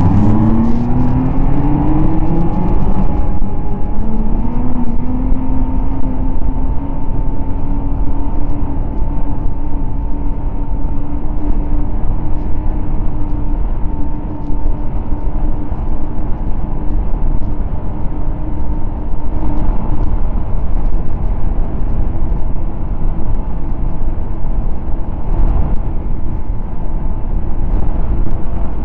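Snowmobile engine, loud, rising in pitch as it accelerates over the first few seconds, then running at a steady cruising speed.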